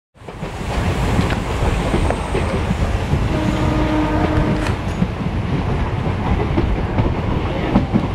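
A passenger train running at speed, heard from a coach window: a steady rumble from the wheels with sharp clicks over the rail joints. A short horn tone sounds briefly a little before halfway through.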